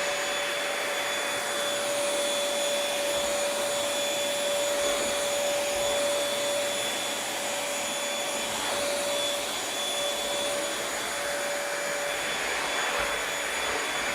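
Bissell Featherweight bagless stick vacuum running at speed: a steady high motor whine over the rush of suction air, the whine dipping briefly a few times just past the middle.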